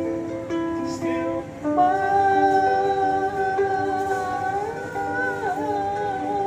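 Ukulele played: quick plucked notes at first, then from about two seconds in a long held melody note sounds over the ukulele's repeated chords, dipping briefly in pitch near the end.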